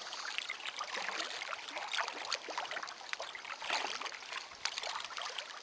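Water lapping and trickling against the hull of a small boat moving slowly across a lake, in uneven little splashes.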